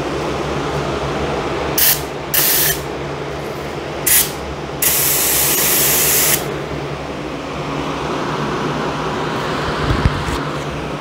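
Gravity-feed spray gun test-spraying black sealer at about 35 PSI in four hissing bursts: three short ones about two to four seconds in, then a longer pass of about a second and a half. A dual exhaust fan runs steadily underneath.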